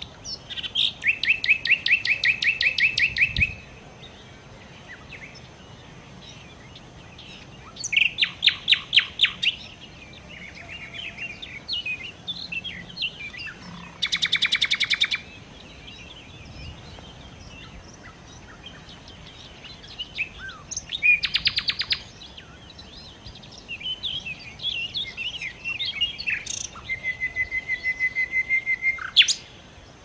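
Nightingale singing: separate phrases of rapid repeated notes and trills, each a second or two long with short pauses between, and a run of even repeated whistled notes near the end.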